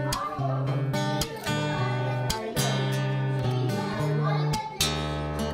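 Background music: strummed acoustic guitar over bass notes, with a beat.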